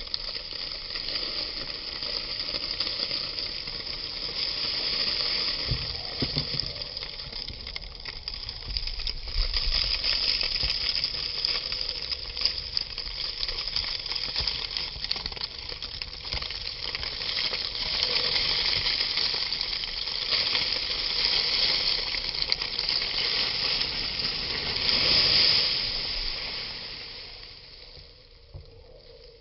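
Dried herb leaves, petals and seed powder poured from a plastic tub into a cloth sack: a continuous dry rustling hiss that swells and eases, dying away near the end.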